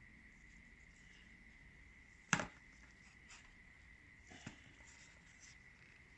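A sharp click about two seconds in, then a few fainter taps, over a faint steady high tone. It sounds like the small parts of a disassembled starter motor being handled on the bench.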